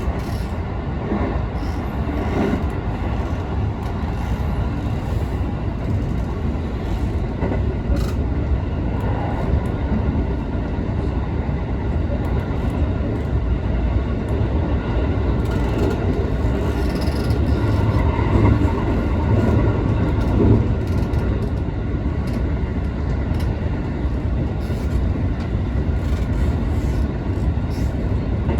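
JR West 221-series electric train running along the line, heard from inside the car: a steady rumble of wheels on rail with a few brief clicks, swelling a little past the middle.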